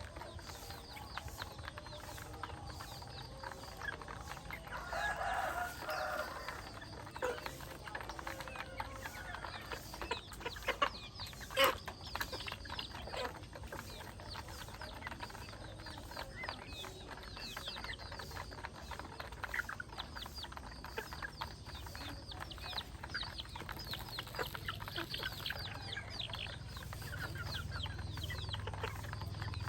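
A flock of chickens clucking, with many short overlapping calls. A rooster crows once about five seconds in, and there is a single sharp knock just before the middle.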